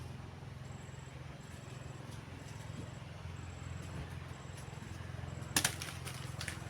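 A steady low mechanical hum, with a single sharp knock about five and a half seconds in.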